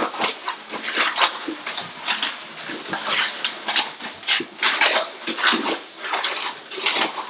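Inflated latex twisting balloons squeaking and rubbing against each other, with dense, irregular squeaks throughout, as a black 260 is twisted and worked down into a cluster of balloons.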